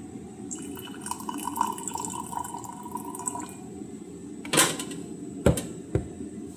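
Hot water being poured into a container of lemon and honey for about three seconds, followed by a clink and two short knocks near the end.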